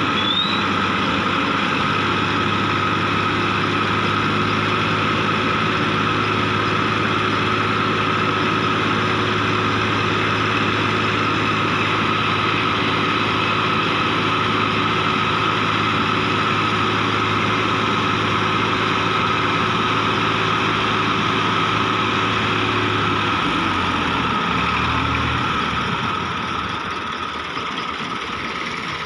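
Massey Ferguson 240's three-cylinder diesel engine running steadily, driving the hydraulics that tip a trolley loaded with soil. Its note drops about 23 seconds in, and it grows quieter near the end.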